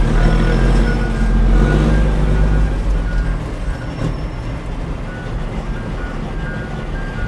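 Heavy truck's diesel engine running, heard from inside the cab, louder over the first few seconds and then easing off. A repeating high two-note beep sounds over it.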